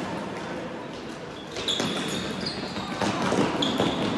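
Indoor floorball play: short high sneaker squeaks on the sports-hall floor and scattered knocks of sticks and the plastic ball over a busy hall din.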